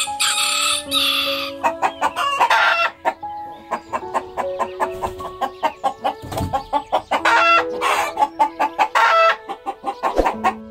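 Rooster crowing in the first second and a half, followed by a flock of chickens clucking, with another loud call a little past the middle.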